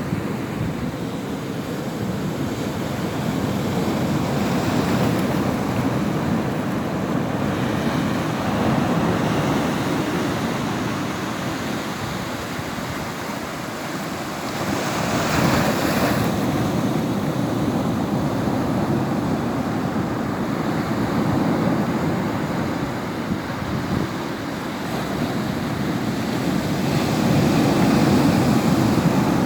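Ocean waves breaking and washing in, a continuous rush of surf that swells and eases, with one louder, hissing wash about halfway through.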